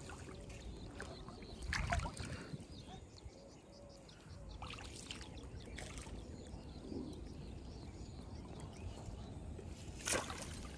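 Quiet pond-side sounds of small water noises and bamboo fishing poles being handled, with a sharp splash near the end as a fish pulls on a hooked line.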